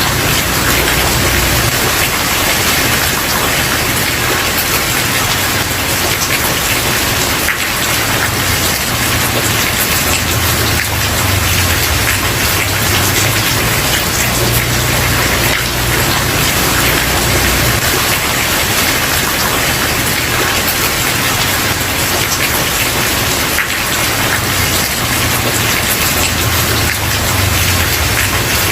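Steady, heavy rain falling on a wooden porch: a dense, even patter of drops, with a low rumble swelling and fading underneath.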